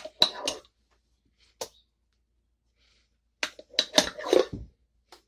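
A utensil knocking and scraping against a blender jar and a glass bowl as thick ground urad dal batter is scooped out. There are a few knocks at the start, a single one about a second and a half in, and a busier run of scrapes and clinks around four seconds in.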